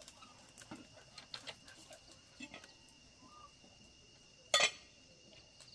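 A chicken clucking, with one short loud squawk a little past the middle, amid faint scattered clicks.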